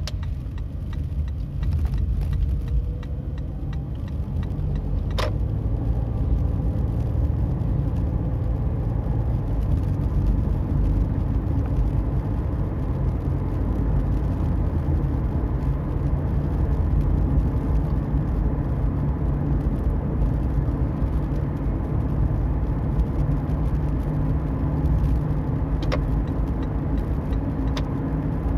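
Toyota Prius driving, heard from inside the cabin: steady road and tyre noise with a faint steady hum on top, the abnormal wheel-axle noise the owner is documenting. A sharp click about five seconds in and two more near the end.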